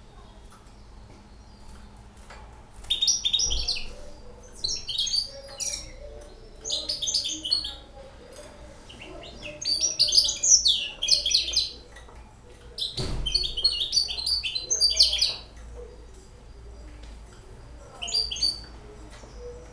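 A six-month-old caged hybrid finch singing: about six bursts of quick, high twittering, each a second or two long, with short pauses between. A single low knock comes about two-thirds of the way through.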